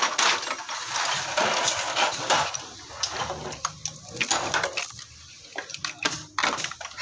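Repeated metallic clinks and knocks of tools and parts being handled during reassembly work on a car engine bay.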